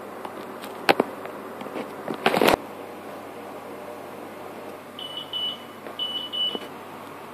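Plastic K'NEX pieces knocking and clattering against each other and the wooden floor, with a sharp click about a second in and a loud clatter about two and a half seconds in. Later come two short runs of high electronic beeping.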